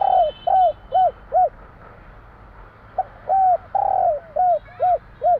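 Spotted dove (tekukur) cooing: two phrases about three seconds apart, each a longer coo followed by a quick run of three or four short coos. Faint high chirps from a small bird sound near the start and near the end.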